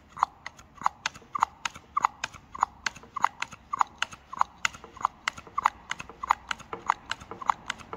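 Hand-operated pistol-grip vacuum pump being squeezed over and over, about one and a half strokes a second, each stroke a click with a short squeak. It is drawing vacuum on an oil cooler to test it for a leak between its oil and water passages.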